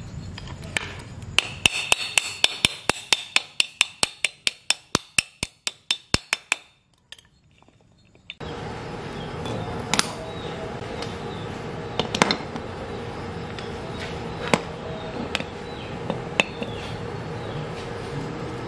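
Steel drivetrain parts (sprockets, hubs and shafts) clicking and clinking against each other and against a tiled floor. A fast run of sharp clicks, about six a second, fades away over a few seconds. After a short near-silence come a few single clinks as the parts are set down, over a steady hum.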